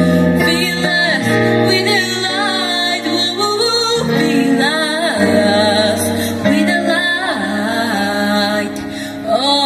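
A woman singing into a microphone over backing music, with long held notes.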